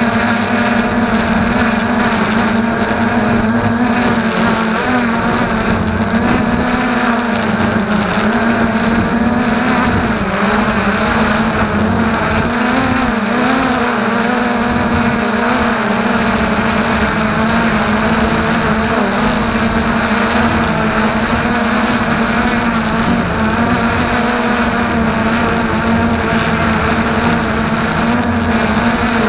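FreeX Skyview quadcopter's motors and propellers running in flight, heard close up from the onboard camera: a steady, loud buzzing hum whose pitch wavers slightly as the throttle shifts.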